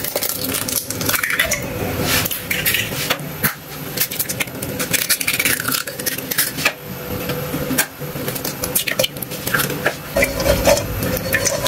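Metal utensil clinking and scraping against a cooking pan as eggs are worked in a little hot oil, in many quick, irregular knocks.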